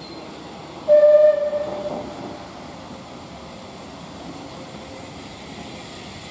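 Steam locomotive whistle: one short blast about a second in, dying away over the following second, over a steady background hiss.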